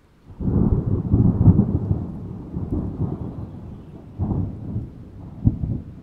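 A peal of thunder breaks suddenly just after the start and rolls on as a deep rumble, fading unevenly, with a fresh swell about four seconds in and a short sharp crack near the end.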